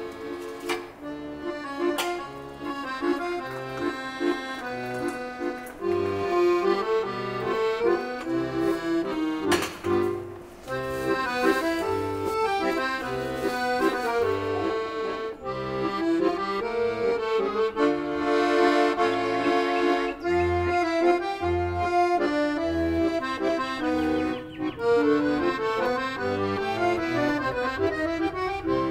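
Background instrumental music: a melody over a steady, regularly pulsing bass line.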